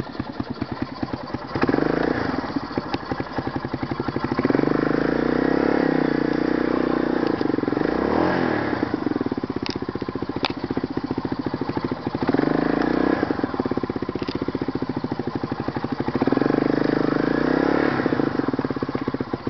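ATV engine close up, puttering at low throttle and revved up four times, the longest burst lasting about four seconds, its pitch rising and falling with the throttle.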